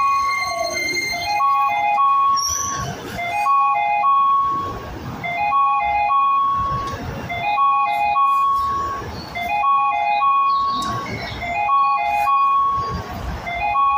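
Electronic station-platform chime: a short melody of a few notes repeating about every two seconds, the warning that a train is approaching, over a low rumble of rail and street noise.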